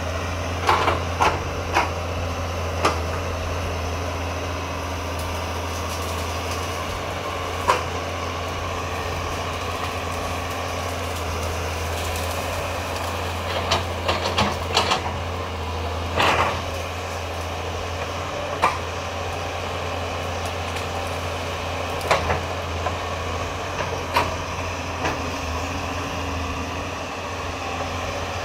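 Caterpillar 320C L hydraulic excavator's diesel engine running steadily under working load. About a dozen sharp knocks and cracks are scattered over it, several close together midway, as the machine tears out brush and small trees.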